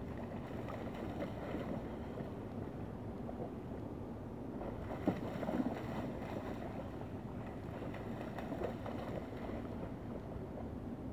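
A dog splashing as it bounds through shallow river water, over a steady rush of water, with a couple of louder splashes about halfway through.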